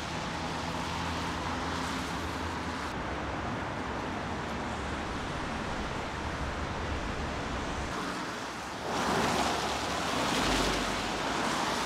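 Street traffic on a wet road: a steady hiss of tyres on wet asphalt with a low hum underneath, swelling louder as a car passes close about nine seconds in.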